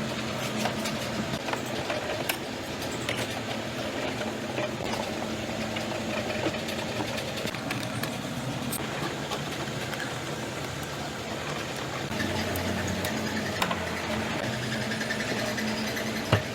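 Steady mechanical running noise with a low hum and scattered light clicks and taps, growing a little louder near the end, where one sharp tap stands out.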